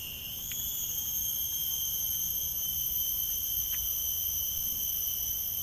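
Steady chorus of insects, several high-pitched tones held without a break, over a low rumble, with two faint clicks about half a second and nearly four seconds in.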